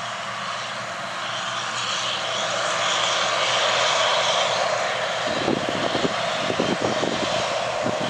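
Case IH Axial-Flow 2577 combine running steadily while harvesting standing corn, its engine and threshing noise swelling a little about two seconds in. From about five seconds in, irregular low thumps join the steady noise.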